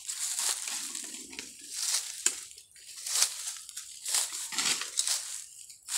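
Footsteps crunching and rustling through dry bamboo leaves and twigs, an irregular crunch about once a second.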